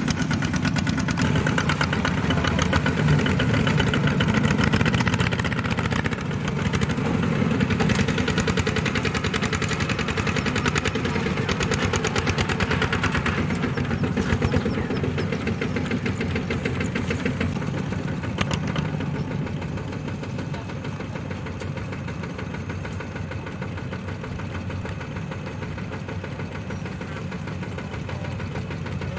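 Single-cylinder diesel engines of two-wheel walking tractors running under load as they pull rice-laden trailers, with a rapid, even beat. The sound grows somewhat quieter about two-thirds of the way through.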